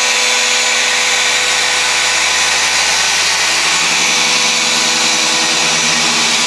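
Handheld machine polisher running steadily at a constant speed, its foam pad buffing the paint of a car during paint correction. A steady motor whine over a continuous whirring hiss.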